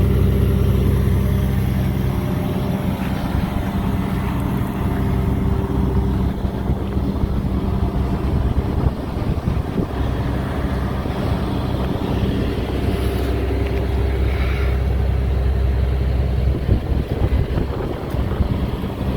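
Diesel engine of a Caterpillar 330DL crawler excavator running steadily, a low, even engine hum.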